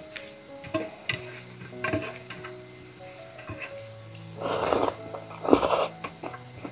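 Close-up eating sounds: scattered small clicks, then two short crackly bursts a little past the middle, over soft background music.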